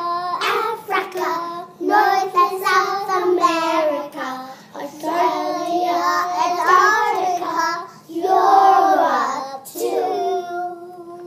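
A child singing a simple song, one voice without accompaniment, phrase after phrase.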